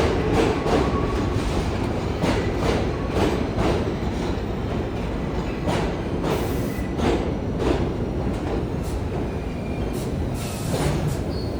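New York City Subway train running through the station, its wheels clacking over rail joints with a steady rumble and a faint wheel squeal. The clacks come further apart as the train slows.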